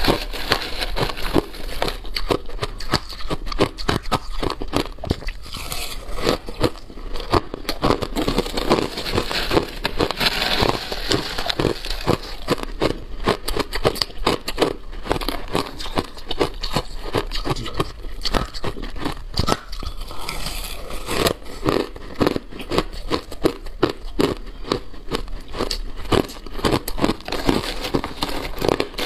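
Crushed ice being chewed close to the microphone: a dense, continuous run of crisp crackling crunches. A metal spoon scrapes and digs into the crushed ice in a steel tray now and then.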